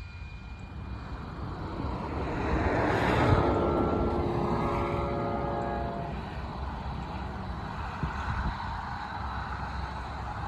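Norfolk Southern AC44C6M diesel locomotive running light passes close, loudest about three seconds in. Its five-chime Nathan P5 air horn sounds a chord for about two and a half seconds as it goes by, then the engine's rumble carries on steadily as it moves away.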